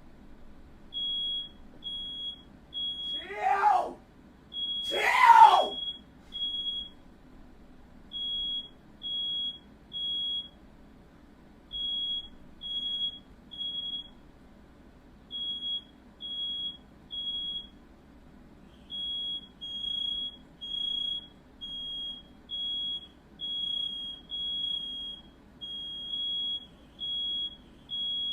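Smoke alarm beeping a single high tone in repeating groups of three, the evacuation pattern it sounds when set off by smoke, here from a firework fire. About three and five seconds in, a person yells loudly twice over it.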